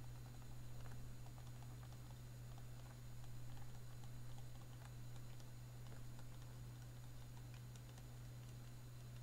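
Faint light taps and scratches of a stylus writing on a pen tablet, scattered irregularly, over a steady low hum.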